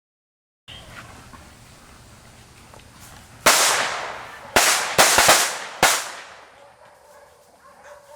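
Five loud, sharp bangs in quick succession, like gunshots: the first about three and a half seconds in, the rest close together over the next two seconds, each with a short echoing tail.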